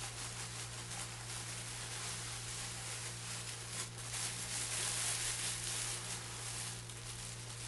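Steady hiss with a constant low hum and a few faint clicks; no clear event stands out.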